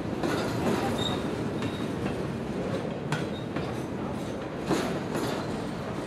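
Freight train cars rolling past: a steady rumble of steel wheels on rail, with irregular clacks as the wheels cross the rail joints. The sharpest clack comes nearly five seconds in.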